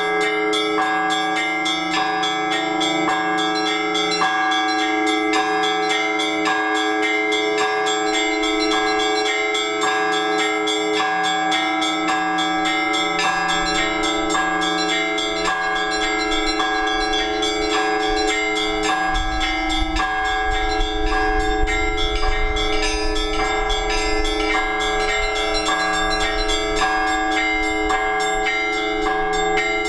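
Orthodox church bells ringing a peal that calls worshippers to the all-night vigil. Small bells are struck in a quick repeating pattern over the sustained hum of the larger bells.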